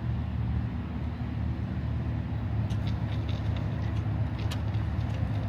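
Small submersible electric utility pump, rated about 1/6 horsepower, running in pool water with a steady low hum, with a few faint light ticks from about halfway through.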